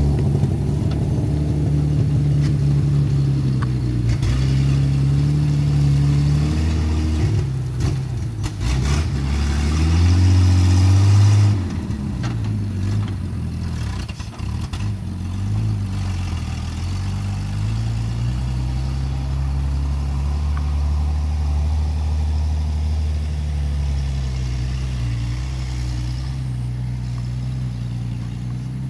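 1954 Dodge M43 military ambulance's flathead straight-six engine running as the truck drives off at low speed. Engine pitch rises and falls through the gears, with a hard rev about ten seconds in that drops off suddenly and a few knocks just before it, then a steadier run.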